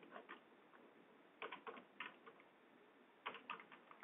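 Computer keyboard typing, faint: three short runs of keystrokes, near the start, around the middle and near the end, as a short text entry is typed.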